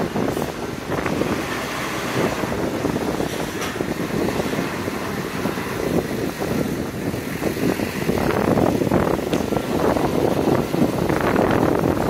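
City street noise with road traffic passing, growing louder in the last few seconds, and wind on the microphone.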